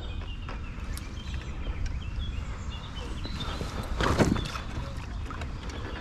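Water lapping and handling noises from a small inflatable boat on the river, over a steady low rumble, with scattered small knocks.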